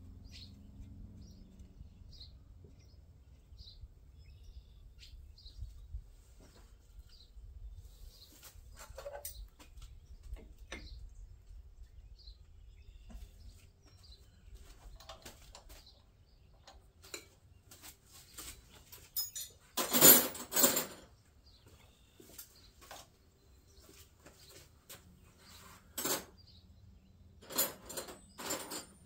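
Intermittent clinks and clatter of metal hand tools being handled, with the loudest rattling burst about two-thirds of the way through and a few more clatters near the end. Faint bird chirps during the first several seconds.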